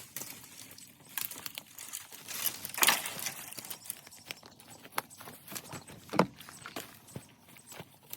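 Irregular crunching, rustling and knocking of footsteps and handling in dry brush and debris, with a couple of sharper cracks about three and six seconds in.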